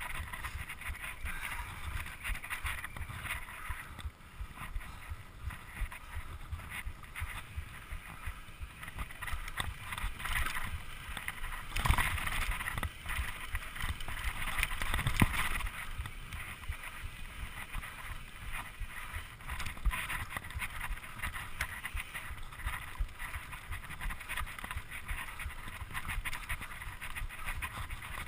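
Mountain bike ridden fast over a dirt trail: a steady rush of tyre and wind noise on the microphone, with the bike rattling and clattering over the rough ground. Two louder knocks stand out about twelve and fifteen seconds in.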